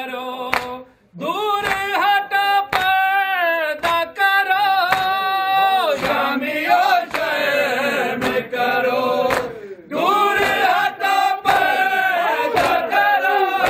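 Men singing an Urdu noha, a Shia mourning lament: one lead voice at first, with the group joining in about six seconds in. Sharp chest-beating slaps (matam) mark the beat about once a second.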